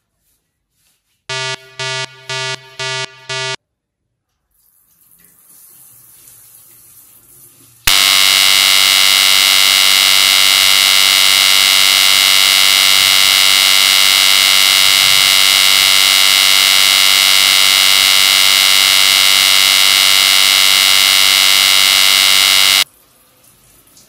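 Five short electronic beeps in quick succession, then a faint rush of running water from the tap. About eight seconds in, a very loud, steady buzzing tone starts abruptly, holds unchanged for about fifteen seconds and cuts off just as abruptly.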